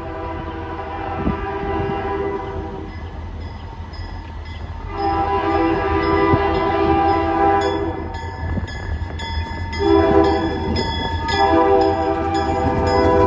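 Diesel locomotive air horn sounding the grade-crossing signal as the train approaches: a long blast, a second long blast, a short one and a final long one, over the low rumble of the approaching train.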